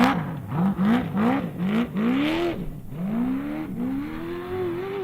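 Off-road race vehicle engine revving in a string of quick rises and falls in pitch, roughly two a second. Over the last two seconds it climbs in longer, steadier revs.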